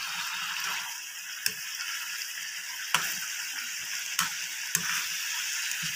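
Chicken and radish curry sizzling in a metal pan while a spoon stirs it, with a few sharp clicks of the spoon against the pan.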